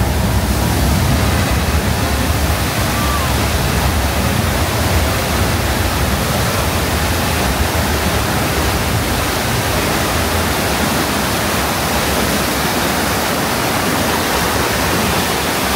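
A torrent of water rushing steadily: the flood effect released in a staged earthquake scene on a studio soundstage. The water sets in at the start.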